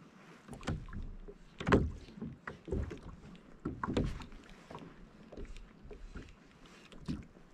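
Irregular knocks and light clatter of gear against the plastic hull of a Hobie Compass kayak, loudest nearly two seconds and four seconds in.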